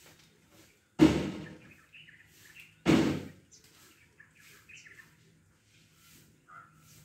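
Two loud cracks about two seconds apart, each trailing off in a rustle of leaves: a wild elephant breaking branches as it feeds in a thicket. Birds chirp faintly in between.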